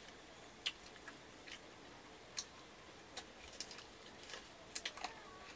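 Faint, irregular sharp clicks of people eating rice and curry by hand from stainless steel bowls, about a dozen scattered over the few seconds.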